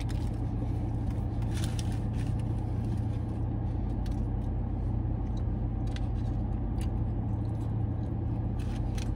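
Steady low hum of a parked car's idling engine, heard inside the cabin, with a few faint clicks of chewing.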